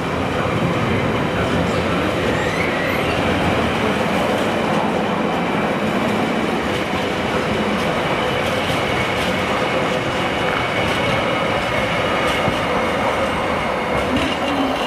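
Freight train of container flat wagons rolling past at close range: a steady rumble of wheels on rail with a thin, steady high-pitched wheel squeal over it.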